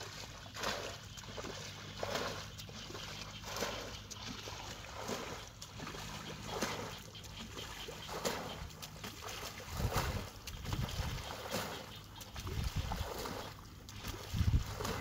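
Shallow muddy paddy water splashing and sloshing as a person wades through it and pushes a basket fish trap down into the water, with a splash about every one and a half seconds and heavier sloshes near the end.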